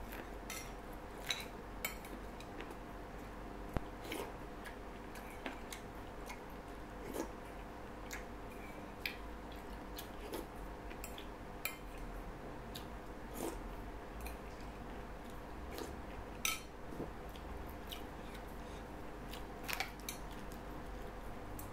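Metal spoon clicking against a ceramic soup bowl at irregular intervals, a sharp click every second or two, with some biting and chewing, over a faint steady hum.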